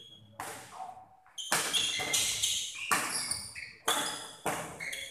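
Badminton rackets striking a shuttlecock in a fast doubles rally, sharp cracks about once a second ringing in a large hall, with short squeaks from players' shoes on the court floor.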